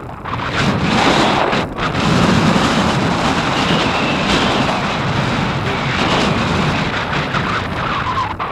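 Strong gusting wind buffeting the microphone, a loud rushing roar that swells up about half a second in and holds.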